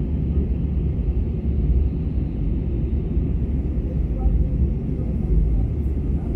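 Steady low drone inside the cabin of an Airbus A319 airliner in flight.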